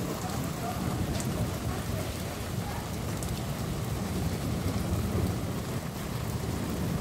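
Steady rain falling in a thunderstorm, over a continuous low rumble.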